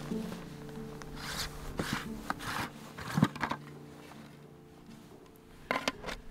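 Soft ambient music with camp-gear handling over it: a zip and rustle of nylon tent fabric in the first few seconds, a sharp click about three seconds in, and a few clicks near the end as the plastic lid of a bear canister is set down on gravel.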